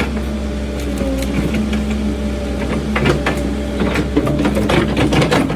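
Cat 308 mini excavator's diesel engine running under load, with a steady hydraulic whine. From about halfway through comes a rapid run of sharp cracks and clatters.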